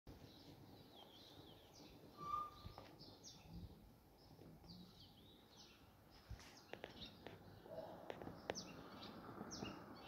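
Faint chirping of small birds: many short, down-slurred high notes, one after another. There is a brief whistled note about two seconds in, and a few sharp clicks a little past halfway.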